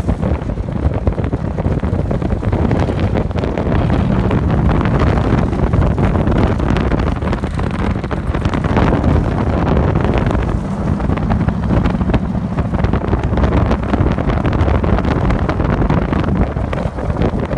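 A vehicle's engine running while driving, its low note shifting a little, with wind buffeting the microphone.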